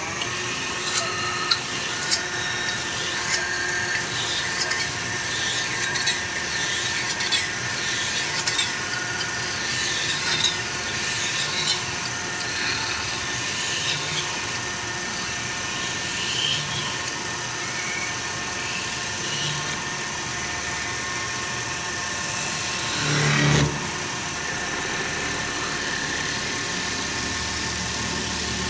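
CNC metal spinning machine running, forming sheet metal on its spindle: a steady machine sound with several held tones. Sharp ticks and wavering high squeals from the roller rubbing the metal come through the first dozen seconds, and a louder squeal about 23 seconds in.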